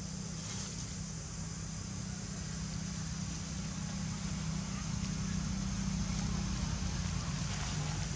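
A steady low hum like a distant motor running, with an even faint hiss above it and only a few light rustles.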